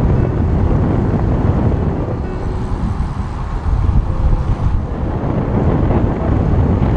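Wind buffeting the microphone of a camera carried on a moving road bicycle: a loud, steady rumble.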